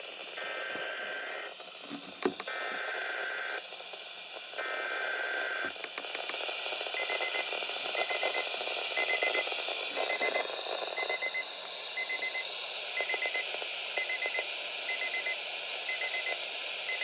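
Weather radio receiving the SAME alert header over static: three short bursts of screeching digital data tones. After them comes an alert beep, a quick cluster of pips repeating about once a second, the signal of the required weekly test.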